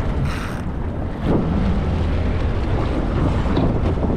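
Wind buffeting the microphone over open sea water sloshing against a boat's hull, with a steady low rumble underneath.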